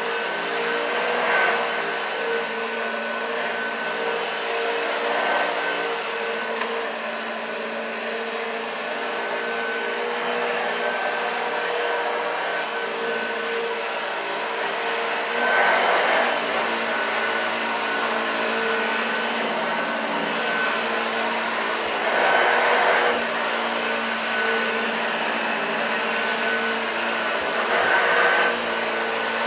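1986 Hoover Junior U1206 upright vacuum cleaner running steadily, its motor giving a constant hum and whine, with a louder surge of airflow noise every few seconds.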